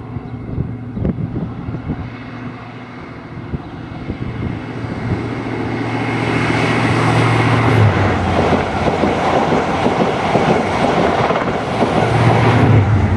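InterCity 125 HST, led by a Class 43 diesel power car, approaching and passing at speed. The engine note and the wheel and rail rush build steadily. The engine is loudest about eight seconds in and again near the end, as each power car goes by.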